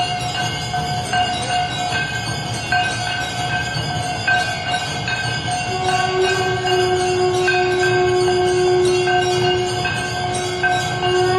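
Temple bells rung continuously for the aarti, a ringing tone struck over and over. A long steady lower tone joins about halfway through and sounds again near the end.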